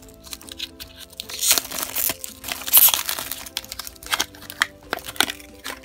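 Clear plastic wrapper crinkling and tearing as it is pulled off a small plastic toy lunchbox, in irregular rustling bursts that are loudest about a quarter and halfway through.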